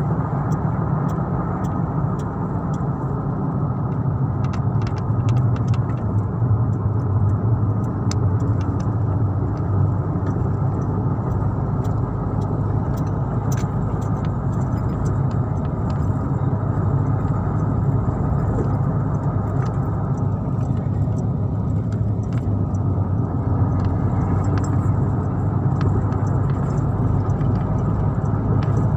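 Steady engine and road noise of a moving vehicle heard from inside the cabin, a constant low hum with faint scattered ticks and rattles.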